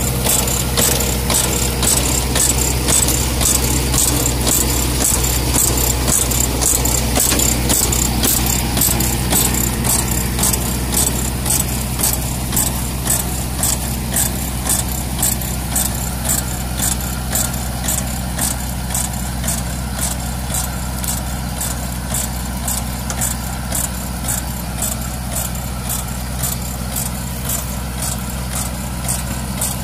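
Small tractor's engine running steadily while it pulls a compost spreader that is discharging, with a regular clatter from the spreader about once a second. The sound grows slightly fainter partway through as the rig moves off.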